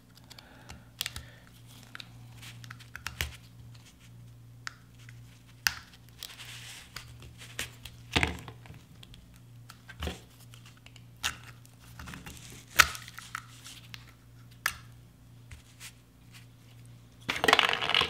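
A metal pick tool scraping and clicking against a rusty retainer ring in the piston bore of an FD RX-7 cast-iron rear brake caliper as the ring is pried out, in irregular sharp ticks and scrapes over a steady low hum. A louder cluster of handling noise comes near the end.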